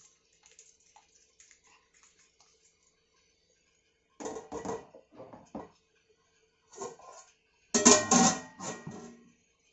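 Aluminium cooking pot and its metal lid clattering as they are handled: a few knocks from about four seconds in, then the loudest clanks near the end, ringing briefly after each hit.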